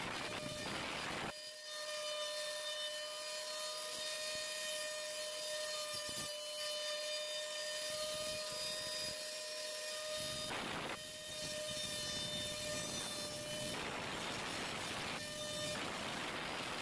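CNC router spindle running with a steady high whine while the bit carves MDF, with spells of louder rasping cutting noise near the start, briefly about eleven seconds in, and through most of the last three seconds.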